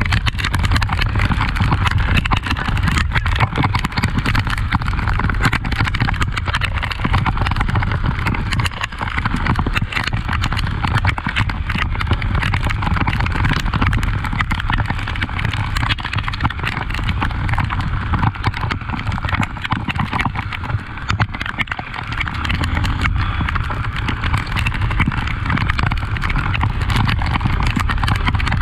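Honda XRE 300's single-cylinder engine running steadily while the motorcycle is ridden off-road, with a low rumble and a dense, irregular clatter of knocks and rattles. The sound dips briefly about two-thirds of the way through.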